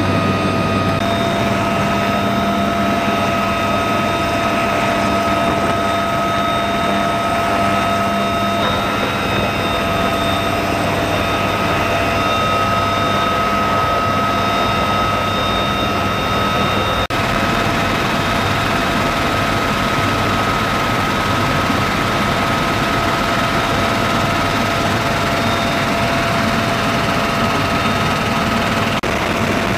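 UH-1Y Venom helicopter heard from inside its cabin: the twin turboshaft engines and rotor running, a steady high turbine whine over a low drone. There is one brief break about two-thirds of the way through.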